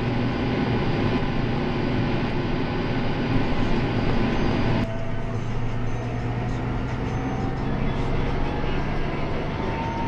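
Claas Arion 650 tractor's six-cylinder diesel engine running steadily on the road while towing a silage trailer, with road and wind noise. About five seconds in, the sound changes abruptly to the duller engine hum heard from inside the cab.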